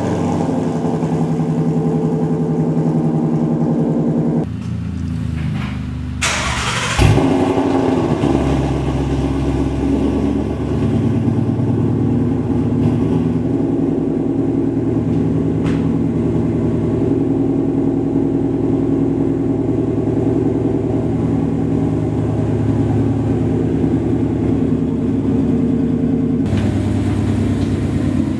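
S550 Mustang's V8 running through freshly fitted long-tube headers and a straight-pipe exhaust with no mufflers, the first firing-up after the install. The sound dips briefly and comes back with a sharp crack about seven seconds in, then runs steadily.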